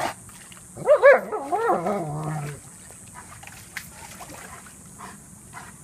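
German Shepherd dog giving an excited whining yelp about a second in, wavering up and down in pitch and dropping low as it ends after about a second and a half, followed by a few faint clicks.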